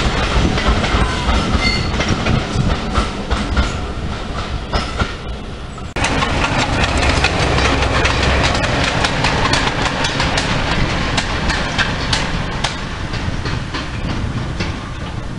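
Railway coaches rolling past, their wheels clicking over the rail joints. About six seconds in the sound cuts to goods wagons rolling past with the same clickety-clack.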